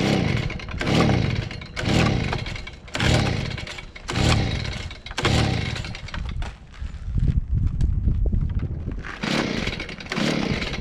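Stihl BG55 two-stroke leaf blower being pull-started on choke: the recoil starter rope is yanked about once a second, each pull a whirring crank that falls in pitch. The engine turns over without catching, a sign that it is not yet starting on the new carburetor.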